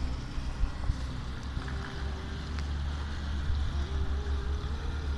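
Wind buffeting the microphone in a steady, fluttering low rumble over a faint outdoor hiss.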